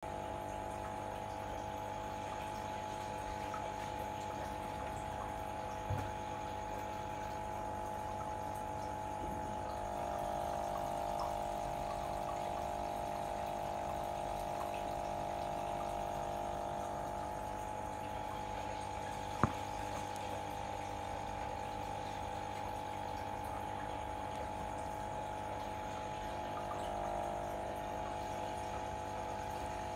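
Aquarium aeration running steadily: an air pump humming and water bubbling from an air stone. A sharp click about twenty seconds in, and a softer knock about six seconds in.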